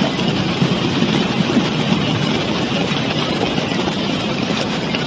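Brown floodwater torrent rushing through a street, a loud steady rushing noise with a heavy low rumble.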